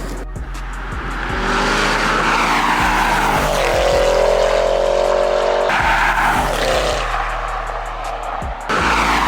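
Audi RS6's twin-turbo 4.0 V8 with downpipes and a full aftermarket exhaust accelerating hard. The engine note rises in pitch, drops at an upshift about six seconds in, climbs again and drops at another upshift near the end. Background music with a steady beat plays underneath.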